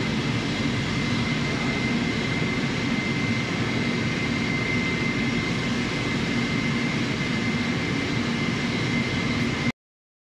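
Steady machinery noise of a welding production line workshop, with a faint high whine held throughout; it cuts off abruptly near the end.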